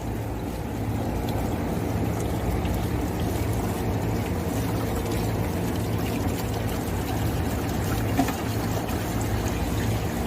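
Package air conditioner running with a steady mechanical hum, while water is poured onto its iced-up suction pipe to melt the ice.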